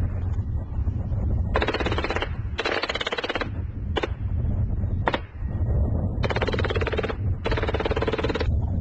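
Automatic gunfire laid down as covering fire for an infantry advance: two long bursts about a second and a half in, two single shots, then two more long bursts near the end. Wind rumbles on the microphone throughout.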